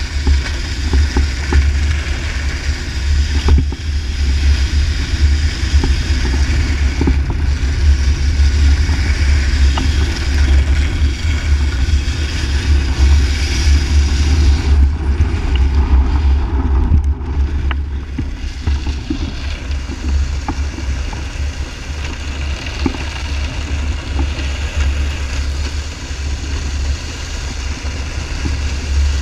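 Wind buffeting the microphone of an action camera carried along at speed, a constant low rumble, with the hiss of a snowboard gliding and scraping over ice.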